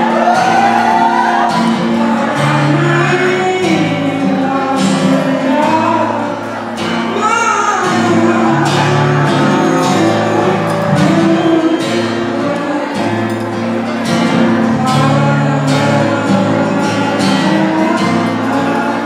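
A young man singing a song into a microphone, accompanied by a strummed acoustic guitar.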